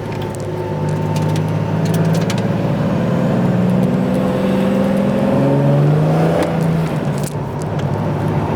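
Car engine and road noise heard from inside the cabin on a drive. The engine note rises under acceleration and drops back about six seconds in.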